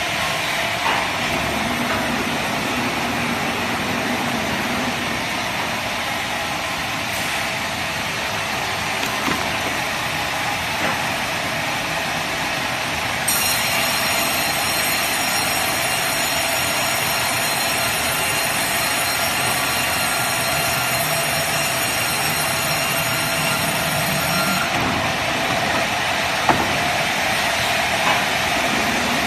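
Heavy-duty CNC vertical carriage band saw running with a steady mechanical noise; a high-pitched whine joins in about midway and stops a few seconds before the end, with a few light knocks.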